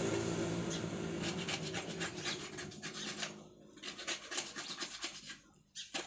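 Quick, irregular rubbing and scratching strokes of hands working a rubber seal and sealant onto a washing machine gearbox's plastic housing. A low hum stops about a second in.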